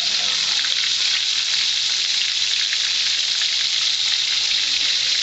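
Battered swai fish pieces deep-frying in a skillet of hot grease: a steady dense sizzle with fine crackling throughout.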